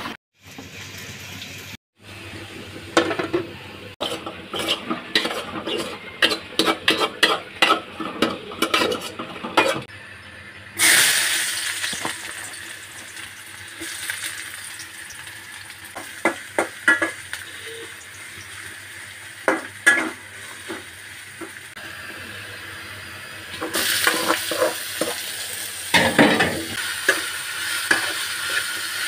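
A metal spatula taps and scrapes quickly against a cooking pan. About eleven seconds in, chopped garlic sizzles in hot oil. Later the sizzling grows louder as leafy greens fry, stirred and scraped around the pan with the spatula.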